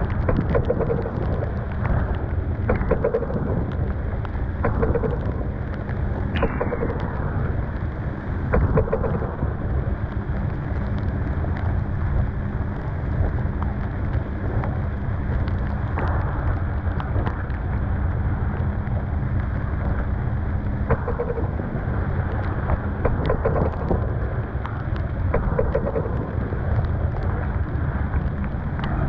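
Storm wind buffeting the microphone aboard a sailboat in heavy weather, with rain and spray hitting the canvas overhead and waves splashing against the boat every few seconds.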